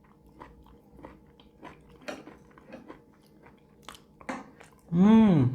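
Close-up chewing and biting of stuffed bitter gourd (karela), a run of small wet clicks and crunches. About five seconds in, a loud short voiced hum rises and then falls in pitch.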